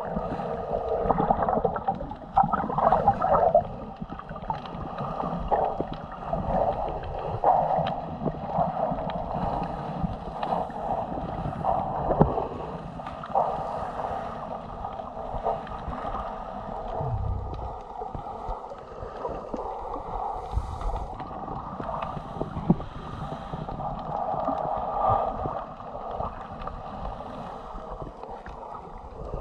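Muffled underwater sound picked up by an action camera in a waterproof housing: uneven gurgling and sloshing of water, with an occasional sharp knock.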